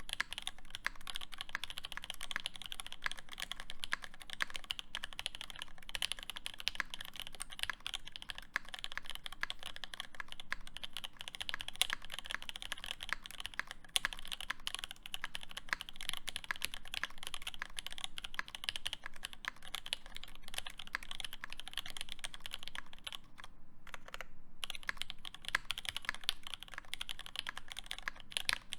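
Rapid, continuous typing on a SQUARE.X mechanical keyboard with lubed Alpaca linear switches on an aluminium plate and GMK keycaps, with two brief pauses late on.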